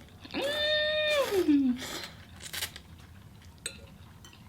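A high-pitched wordless vocal sound, held for about a second and then sliding down in pitch. Light clinks of a fork against a bowl come before and after it.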